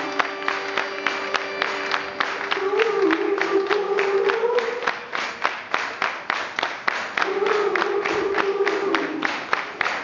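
Live band playing to a crowd: a steady, fast beat of sharp hits, about four to five a second, under a wavering sung melody that drops out around the middle and comes back, with crowd noise.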